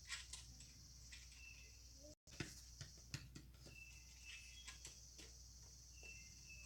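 Near silence with faint, scattered small clicks and taps as a nut is hand-threaded onto a bolt, over a steady high hiss.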